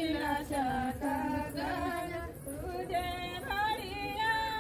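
Women singing a Chhath devotional folk song together, unaccompanied, with long held, gliding notes.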